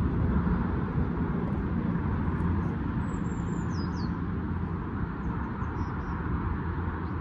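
Steady low outdoor rumble of open-air background noise. A single high bird call glides downward about three seconds in, and a few faint chirps follow a couple of seconds later.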